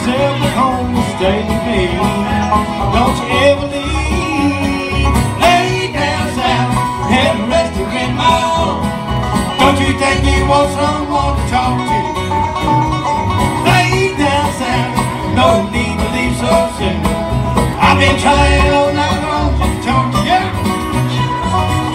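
Live bluegrass band playing an instrumental passage: acoustic guitars picking and strumming over a steady bass line, with fiddle.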